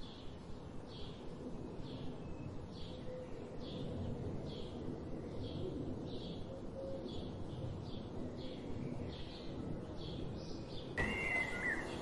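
Small songbird giving a steady run of short, high chip calls, roughly two a second, over a low outdoor rumble. About eleven seconds in, the sound cuts to a different bird's brief, lower wavering call.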